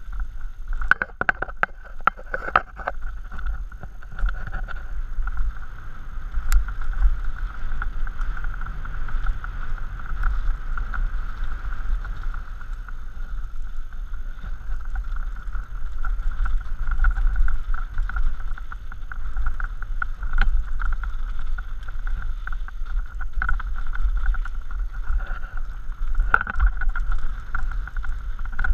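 Mountain bike descending a rough dirt singletrack, heard from a helmet-mounted camera: wind rumble on the microphone with a steady high buzz, and knocks and rattles of the bike over rocks, thickest in the first few seconds.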